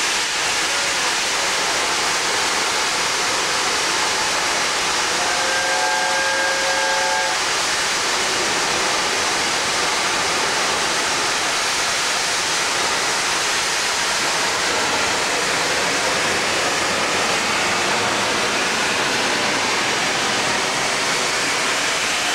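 LNER A4 steam locomotive 60009 blowing off steam in a loud, steady hiss. About five seconds in, a whistle sounds a short chord of several notes for about two seconds.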